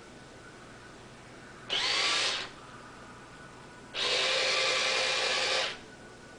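Small electric motor in a Sharper Image Feline Frolic Mouse cat toy whirring in two bursts, a short one that starts with a quick rising whine and then a longer one of nearly two seconds.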